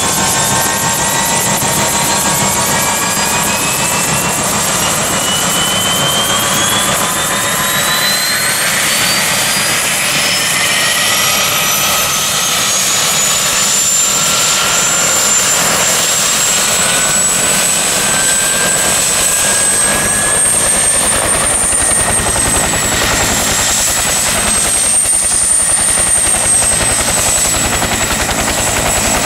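A Bell Huey-type helicopter's turbine engine spooling up with the main rotor turning: a whine climbs steadily for about fifteen seconds, then levels off high and wavers slightly, over a steady rotor and engine noise.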